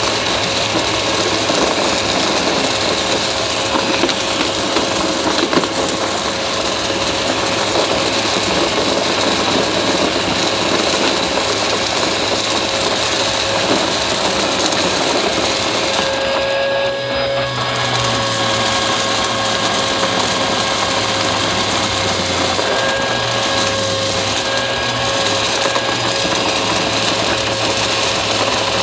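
Upright vacuum cleaner running steadily with a constant motor whine, picking up crunchy debris with a continuous crackle. The hiss drops out briefly a little past halfway, then the running carries on.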